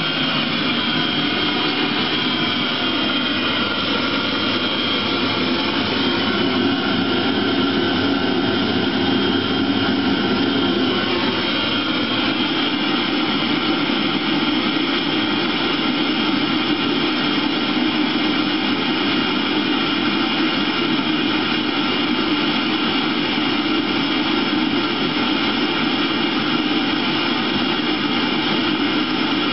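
Eberspächer Hydronic D5WZ diesel water heater running on the bench: a steady blower-and-burner noise with a few steady tones over it. The sound shifts a little about eleven seconds in and then holds steady.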